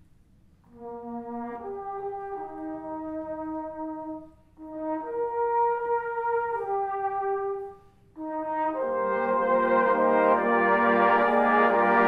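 Brass band music: two slow phrases of long held brass notes with short pauses between them, then the full band comes in about eight seconds in, louder and fuller.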